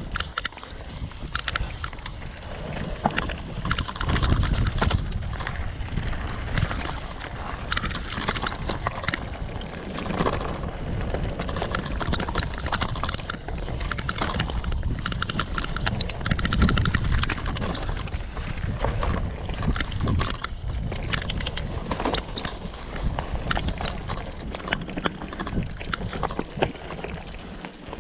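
Mountain bike riding down a rough natural trail: tyres grinding over loose rock and gravel, with frequent sharp rattles and knocks from the bike over bumps. Wind buffets the microphone in an uneven low rumble.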